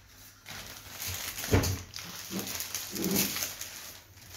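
Plastic-wrapped rolled foam mattress being stood upright, with a thump about one and a half seconds in and plastic crinkling. A few short vocal sounds follow.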